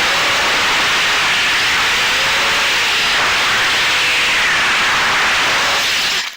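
Eachine Wizard X220 FPV racing quad's brushless motors and propellers whirring, heard through its onboard camera under a loud rush of wind noise, the motor pitch gliding up and down with throttle. The sound cuts off suddenly at the very end.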